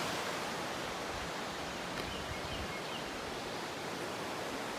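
Steady rush of water from a mountain stream cascading over rocks.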